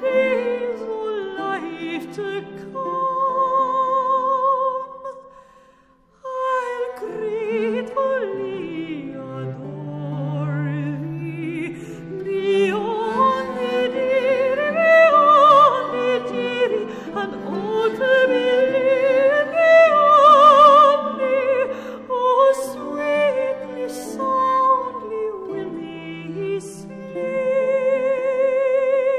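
Background music: a classical, operatic-style vocal melody sung with strong vibrato, breaking off briefly about six seconds in before carrying on.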